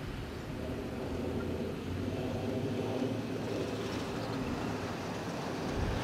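A steady engine rumble with a low hum, slowly growing louder.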